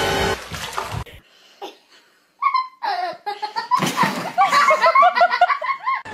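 Water splashing in a bathtub for about the first second, then, after a short quiet gap, a person laughing in quick, high-pitched repeated peals.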